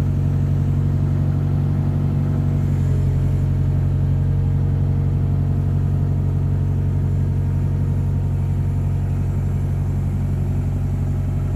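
Engine running steadily at a constant low speed, heard from inside the cab.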